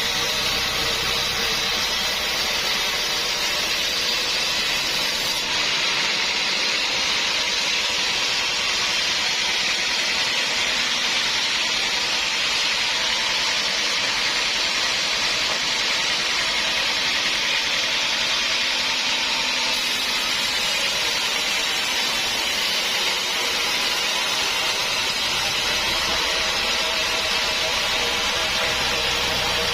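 Sawmill running, a steady even hiss and whine of a saw cutting through a log, with no break.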